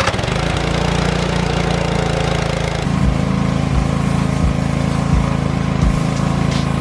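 Small gas engine of a gas-powered pressure washer starting cold and running steadily. About three seconds in, its note shifts and short low thumps begin to repeat.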